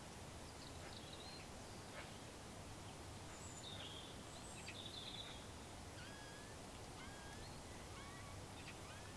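Faint mouse squeaks made with the lips, used as a predator call imitating a mouse. They come as a scatter of short high squeaks, then a run of short sliding squeaks about once a second near the end, over steady outdoor hiss.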